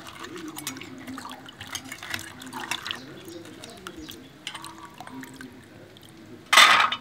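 Hands swishing and rubbing green tamarind pods in a steel bowl of water, with sloshing and dripping, and one short, louder noise near the end.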